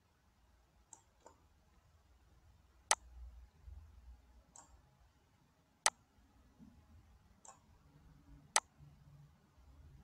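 Computer mouse button clicking: about seven scattered single clicks, three of them louder and spaced roughly three seconds apart.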